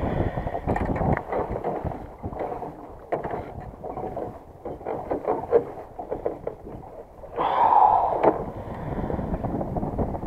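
Wind buffeting the microphone on a small fishing boat, with scattered small knocks and clicks. About seven seconds in there is a louder tone that lasts about a second.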